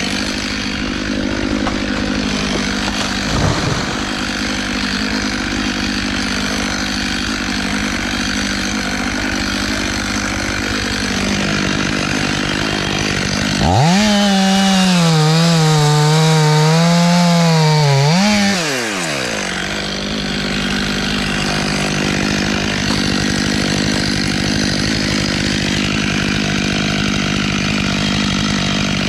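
Gas chainsaw engine running steadily, then throttled up about halfway through for a few seconds at a louder, wavering pitch, before dropping back to its steady running note.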